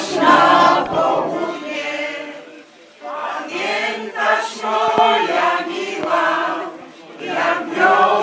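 Mixed choir of men's and women's voices singing in Polish, in sung phrases with a brief pause about three seconds in and another near seven seconds.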